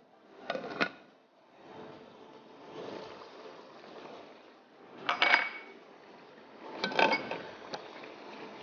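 Pots, pan lids and a spatula clanking against metal cookware on a gas hob: three short bursts of clatter with a metallic ring, about half a second in, about five seconds in and about seven seconds in. A faint steady hiss from the steaming pans lies between them.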